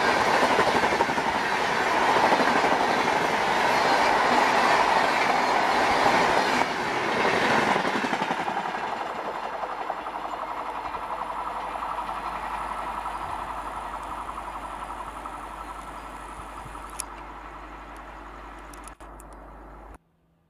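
Rajdhani Express passenger coaches passing at speed: loud wheel-on-rail running noise that fades steadily as the train recedes into the distance, then cuts off suddenly near the end.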